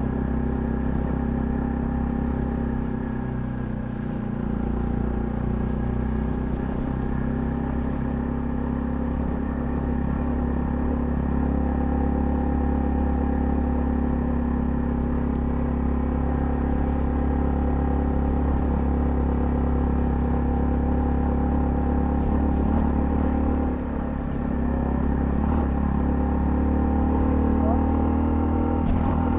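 Honda CL250 motorcycle engine running steadily under way. The throttle eases off briefly twice, and the engine pitch rises near the end as it accelerates.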